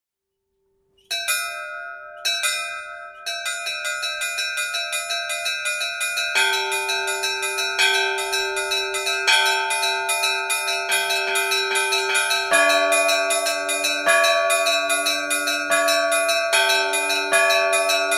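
Church bells ringing: two single strokes, then several bells pealing in a fast, steady run of strokes, with lower-pitched bells joining in about six seconds in and again about twelve seconds in.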